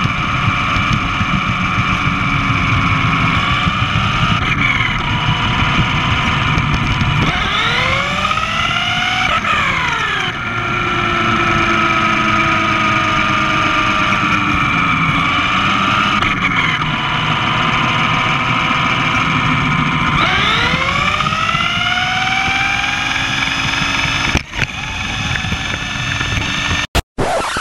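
Traxxas 1/10-scale RC car's electric motor and drivetrain whining at speed, the pitch rising and falling several times as the car speeds up and slows, over a steady low rumble. A sharp click comes near the end, and the sound cuts off abruptly just before the end.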